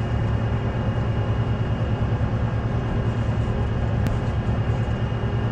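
Steady deep rumble of a heavy vehicle's engine running, with a fast flutter in the low end and a faint steady high whine above it.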